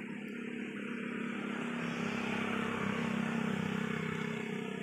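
A motor vehicle engine running steadily, growing louder over the first few seconds and easing off near the end, as a vehicle passing by.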